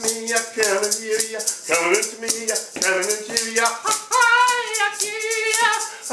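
A man chanting a repeated sung melody while shaking a maraca in a steady rhythm. The melody ends on a higher held note near the end.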